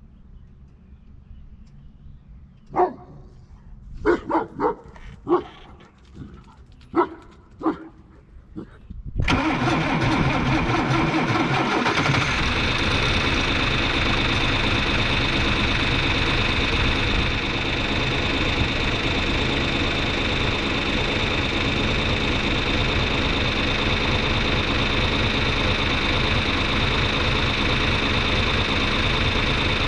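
A John Deere 2940 tractor's six-cylinder diesel engine starts about nine seconds in and then runs steadily at a constant speed. It is preceded by a few short, sharp sounds.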